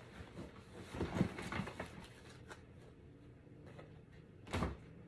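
Soft rustling of baby clothes and a fabric storage bag being rummaged through and handled, with one short, louder rustle a little over four seconds in.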